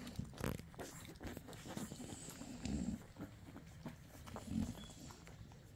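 Nano American bully puppies nursing from their mother: small wet clicking suckling sounds, with two short low grunts.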